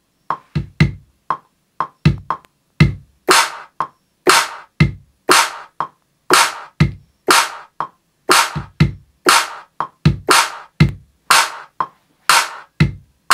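Looping drum-machine pattern in Maschine: a kick sample thumps on the beat. About three seconds in, a TR-808-style clap sample starts coming in as it is played on the keyboard and recorded into the loop, repeating every half second to a second.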